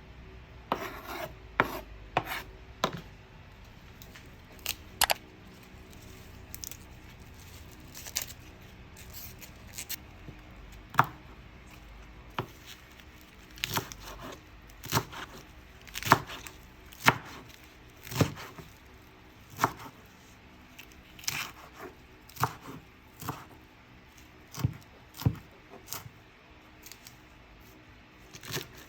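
Irregular sharp taps and clicks, roughly one a second and some in quick pairs, with a few short scrapes between them, as of small objects handled against a hard surface.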